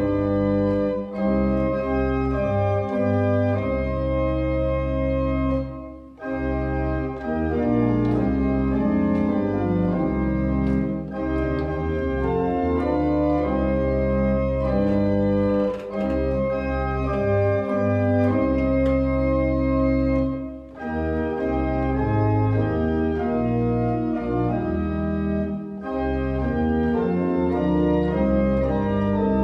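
Church pipe organ played in full sustained chords over deep bass notes, pausing briefly about six seconds in and again about twenty seconds in.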